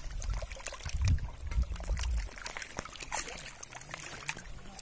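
Water splashing and trickling off a nylon mesh keep net as it is lifted from shallow water, with many small scattered drips and splashes.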